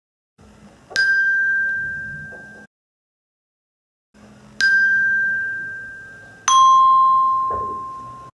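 Tuned Prodigies Bells ringing single notes. One note sounds about a second in, then the same note again a few seconds later, followed by a lower note. Each is struck sharply and rings as it fades.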